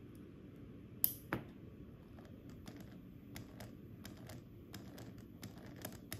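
Two sharp clicks close together about a second in, then scattered light ticks over a low steady hum, from a hand working the switch on a small motor-controller board.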